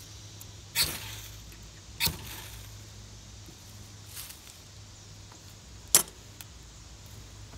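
Spine of a Stanley 10-049 stainless utility-knife blade scraped down a bayite keychain ferro rod: two quick scraping strikes about a second apart, a fainter one near the middle, then a sharp click near the end.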